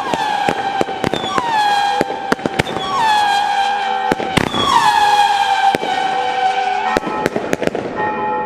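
Fireworks battery firing whistling shots: a string of overlapping high whistles, each dropping a little in pitch and then holding, among sharp bangs and crackling. The whistling stops near the end while the bangs go on.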